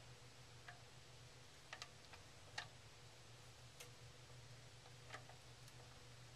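Near silence: a low steady hum with about eight faint, irregular clicks, the loudest about two and a half seconds in.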